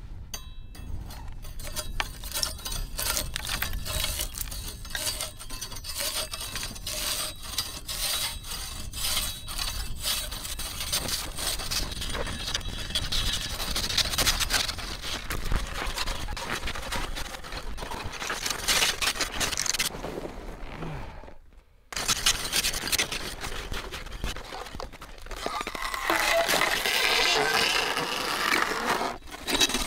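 Hand ice saw scraping back and forth across a large block of lake ice in repeated strokes. The sound breaks off briefly about two-thirds of the way through, and the scraping is louder near the end.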